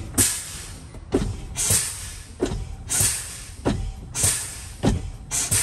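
Air brakes of a Freightliner truck being fanned: the brake pedal is pumped over and over, and each stroke gives a short, sharp hiss of air exhausting. The hisses come about one and a half times a second. This bleeds down air tank pressure to bring on the low-air warning light.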